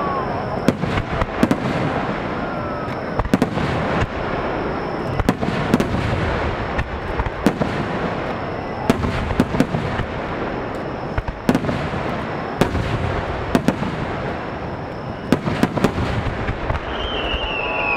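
Japanese starmine fireworks display: shells bursting in rapid volleys, sharp reports coming singly and in quick clusters over a continuous crackle and rumble. A long falling whistle comes in near the end.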